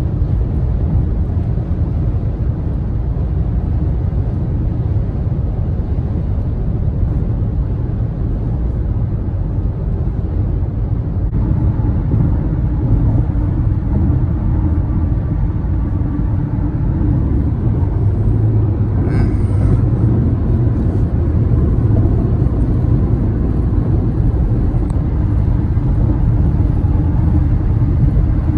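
Road noise inside a moving car's cabin on a freeway: a steady low rumble of the car's running gear and the surrounding traffic.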